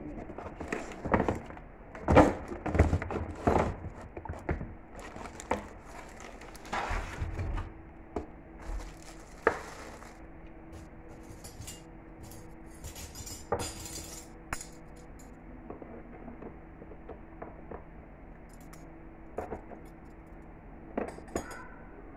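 Metal cutlery (spoons, forks and knives) clinking as it is set piece by piece into the fitted tray of a cutlery case, busiest and loudest in the first half, then sparser. Crinkling of the tray's plastic wrapping comes in between.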